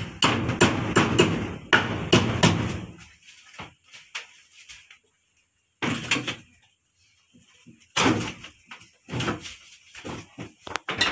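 Wooden plank door banging and rattling in its frame as it is worked by hand, with a dense run of knocks over the first three seconds and a few more clusters of thumps later on.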